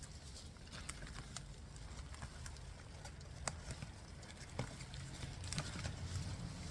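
Hands digging through potting soil in a fabric potato grow bag: faint, irregular soft clicks and crackles, about one or two a second, over a steady low rumble.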